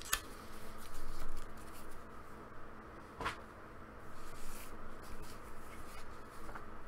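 Paper booklets being handled: soft rustling of pages and covers, with a few light clicks and taps, over a faint steady hum.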